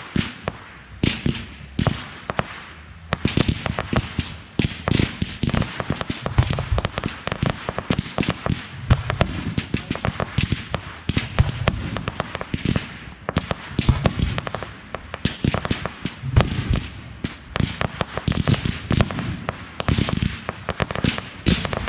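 Aerial fireworks display: a dense, continuous run of shell bursts and sharp crackling reports with deep booms underneath.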